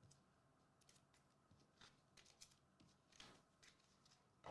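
Near silence with faint, scattered rustles and light clicks of trading cards and packs being handled.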